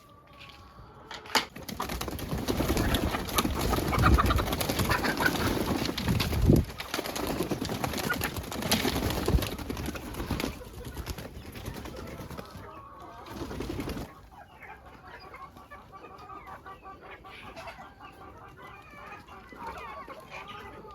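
A loud, rough rustling noise with a few knocks sets in about a second in and lasts some twelve seconds, then drops away suddenly. After it, backyard poultry call: chickens clucking and doves cooing in short repeated calls.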